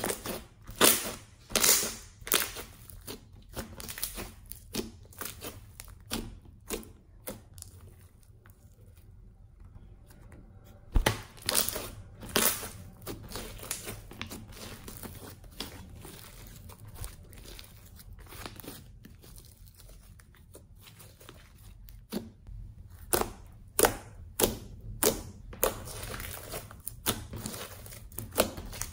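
Hands squeezing and kneading slime, making irregular sticky squelches with sharp little pops and crackles. The pops cluster in bursts, densest near the start, about eleven seconds in and again from about twenty-three seconds in.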